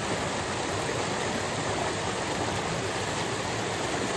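Fast-flowing mountain stream, a steady even rush of water.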